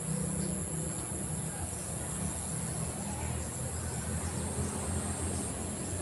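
Steady outdoor ambience: a low rumble with a constant high-pitched hum above it.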